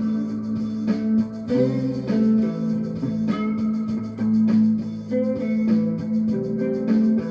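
Improvised looped playing on a homemade short-scale (19-inch) fretless string instrument tuned A-E-a: a steady low drone held throughout, with plucked melody notes layered over it.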